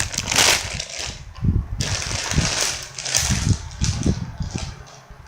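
Close handling noises of a squishy toy being taken out of its packaging: irregular plastic rustling and crinkling with scattered soft knocks.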